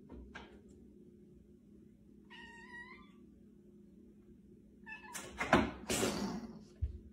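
A domestic cat lands with a soft thud and gives one short meow. About five seconds in comes a loud scratchy, rustling burst lasting over a second, the loudest sound, then a dull thump.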